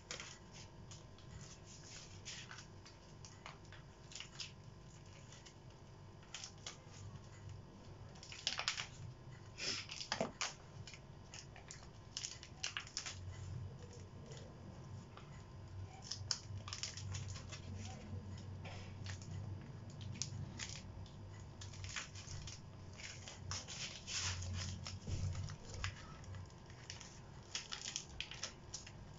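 Glossy paper crinkling and rustling as it is rubbed and dabbed against the painted board, in irregular short scratchy strokes, busiest in the second half.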